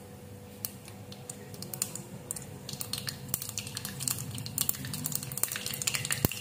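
Mustard seeds crackling and popping in hot oil in a small pan during a tempering. The pops are sparse at first and come thicker and louder from about halfway, the crackle that signals the seeds are done and the cumin can go in.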